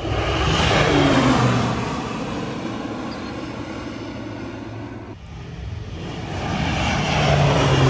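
Single-engine airplane passing low overhead. Its engine drone is loudest about a second in and drops in pitch as it goes by, fades, then swells again near the end as the plane comes round once more.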